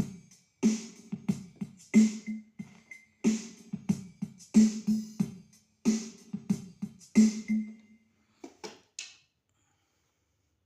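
Yamaha PSR-E403 portable keyboard playing a drum-machine style rhythm pattern through its speakers: a strong beat about every 1.3 seconds with lighter hits between, stopping about nine seconds in.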